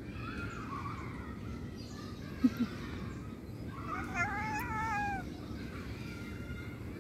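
A cat's long wavering meow, about a second long, about four seconds in. Two sharp knocks come just before it, about two and a half seconds in.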